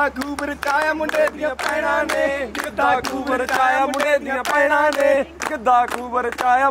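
Voices singing or chanting a song together, with many sharp handclaps over the singing.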